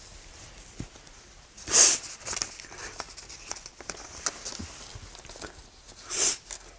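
A man crying, sniffing in hard twice, about two seconds in and again near the end, with faint rustling and small clicks between.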